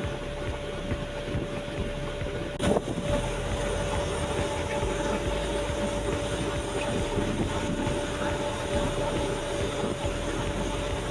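Engine running steadily, with a constant whine over it and a single sharp knock about two and a half seconds in.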